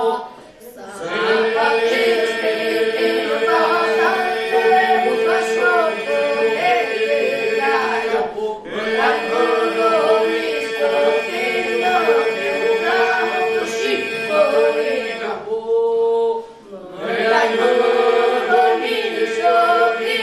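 Group of boys singing unaccompanied in Albanian iso-polyphonic style: a steady held drone under the moving lead voices. The whole group breaks off briefly between phrases, about every eight seconds.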